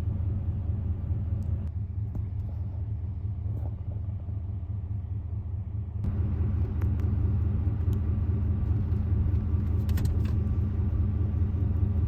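A car engine running steadily with a low rumble, a little louder from about six seconds in.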